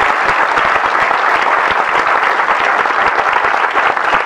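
Audience applause: many hands clapping at a steady level as a speech ends.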